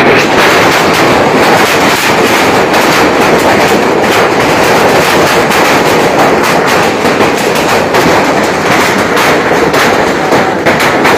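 Heavy hailstorm: a dense, loud, continuous clatter of hailstones pelting roofing and the ground.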